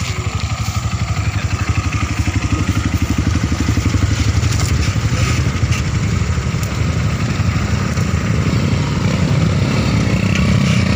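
Small motorcycle engines (dirt bikes and an underbone scooter) running at low speed on a dirt track, a steady fast putter.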